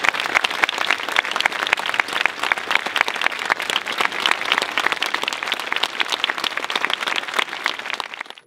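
Audience applauding: a dense, steady stream of many hands clapping, easing slightly near the end.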